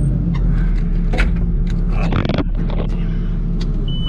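Manure truck's diesel engine idling steadily, heard from inside the cab, with a few light clicks and knocks over it.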